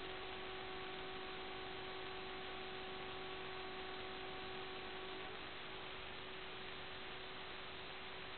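Steady static hiss from an analog FPV video receiver's audio channel, with a faint steady hum tone that stops about five seconds in.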